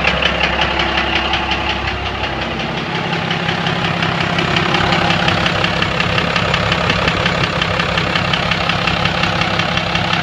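1997 Dodge Ram's 5.9-litre 12-valve Cummins inline-six diesel idling with a steady, evenly repeating knock, which the owner suspects is injector knock; there is some fuel in the oil but no metal shavings. The deep low rumble drops away about three seconds in.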